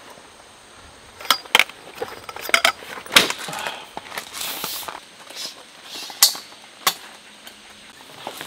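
Hard clicks and knocks of a tarp pole and its carry bag being handled, the pole's sections clacking as it is pulled out and set up, with a short rustle about four seconds in.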